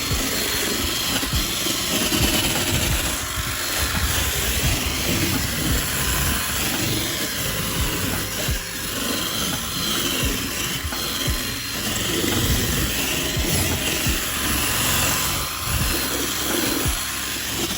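A drill spinning a soft-bristle brush attachment, scrubbing hard plastic and vinyl interior trim that has been sprayed with all-purpose cleaner. It runs steadily throughout, under background music.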